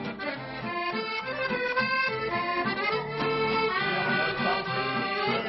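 Accordion music: a melody over sustained chords and a bass line, in a traditional style.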